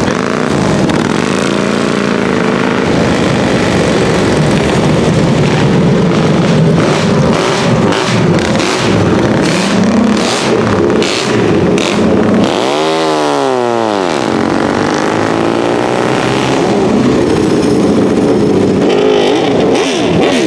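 Several racing cars and racing motorcycles idling and blipping their throttles together, with a string of sharp cracks between about seven and twelve seconds in. About thirteen seconds in, one engine revs up and drops back down.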